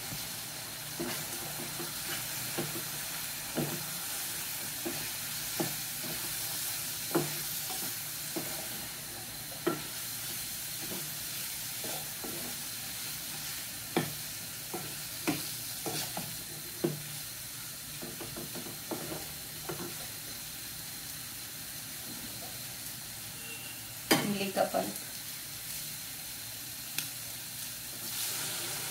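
Goat liver pieces sizzling in hot oil in a kadai, with a wooden spatula stirring and knocking against the pan at irregular moments. Just before the end tamarind water is poured in, and the hiss rises.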